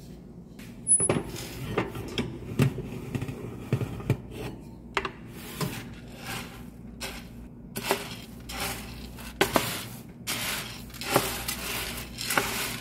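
Wooden spatula stirring green coffee beans in an aluminium roasting pan: the beans rustle and rattle, with scattered clicks and knocks of the spatula and beans against the pan. The stirring gets busier in the second half.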